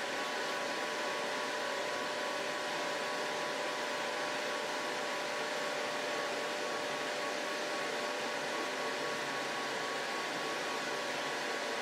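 Jewelry laser welder's water pump running steadily, drawing water into the machine's cooling tank, a constant whir with a steady hum.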